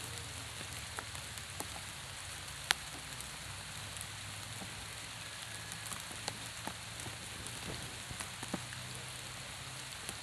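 Steady rain falling on a pond's surface and the grass along its bank: an even hiss with scattered sharper drop ticks, one louder tick a little under three seconds in.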